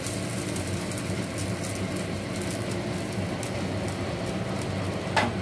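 Vermicelli-batter pancakes frying in ghee on a tawa over medium flame: a light crackling sizzle over a steady low hum, with a short scrape about five seconds in.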